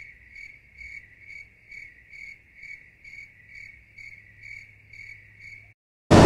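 Cricket chirping sound effect edited in over the scene: a high trill pulsing about twice a second, the stock "crickets" effect for an awkward silence. It cuts off near the end, and after a short dead gap a loud noisy din cuts back in.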